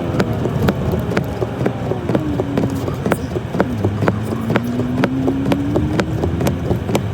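Toyota Tacoma pickup's engine running under throttle, its pitch dipping about four seconds in and then climbing slowly, with many sharp clacks scattered throughout.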